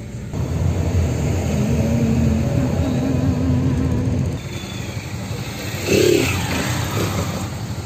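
City traffic moving off from a traffic light, heard from inside a car: motorcycle and car engines accelerating, with one engine holding a steady note for a couple of seconds. A brief louder sound comes about six seconds in.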